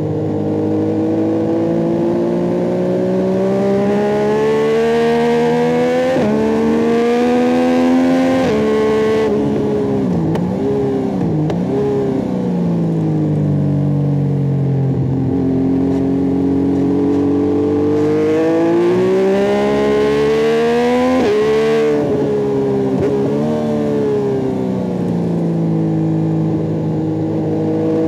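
Yamaha MT-09 SP's 847 cc CP3 inline three-cylinder engine through an Akrapovic carbon racing exhaust, ridden hard. It revs up with a rising pitch, breaks off at gear changes, drops in a series of quick dips about ten seconds in as it downshifts, then pulls in one long rise that peaks about three-quarters through before falling again.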